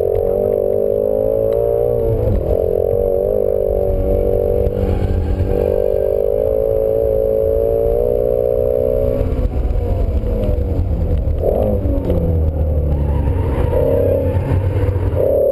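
Ford Shelby GT350's 5.2-litre flat-plane-crank V8 under hard acceleration, heard from inside the cabin: the engine note climbs, breaks briefly for an upshift about two seconds in, and climbs again. About ten seconds in it drops away under braking, with a short rev sweep on a downshift, then picks up again near the end as the car powers out of the corner.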